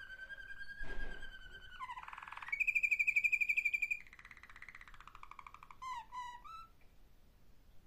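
Malinois (Waterslager) song canary singing a varied song of held whistled notes and fast rolled trills. The loudest passage is a rapidly pulsing note a few seconds in, and the song ends on a few short dropping notes. A sharp knock sounds about a second in.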